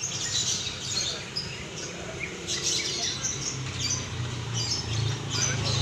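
Cucak ijo (green leafbirds) singing a rapid run of chirps and whistled notes. A low, steady engine hum comes in underneath about halfway through and grows louder toward the end.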